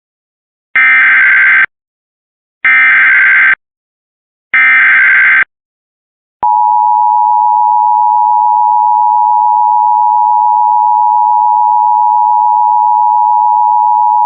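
Emergency Alert System header and attention signal. Three short bursts of digital data tones, each just under a second long and about a second apart, carry the SAME header for a flash flood warning. About six seconds in, the steady two-tone attention signal starts and holds for about eight seconds.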